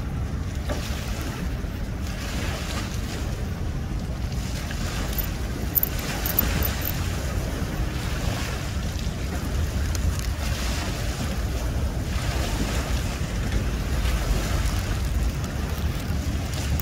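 Small waves washing and splashing against a concrete boat-ramp wall, surging and ebbing every few seconds, over steady wind noise on the microphone.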